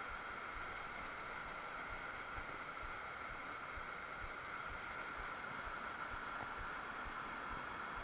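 Small waterfall rushing steadily into a rocky pool, an even, unbroken roar of falling water.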